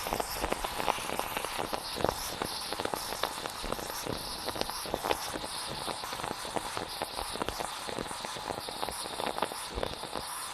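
Stovetop moka pot sputtering: dense, irregular crackling and popping over a steady hiss.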